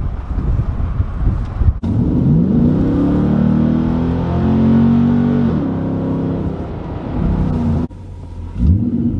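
Nissan Titan's V8 through an aFe Rebel 2.5-inch side-exit cat-back exhaust, heard from inside the cab on a highway pull: the engine note climbs steeply, holds, then drops away. Two takes are spliced together, first with the windows open, then with them shut. Near the end a sharp rev starts after another cut.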